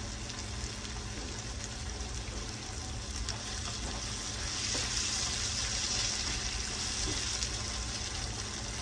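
Vegetable stir fry of zucchini and broccoli sizzling in a frying pan while being stirred with a wooden spoon; the sizzle swells louder about halfway through.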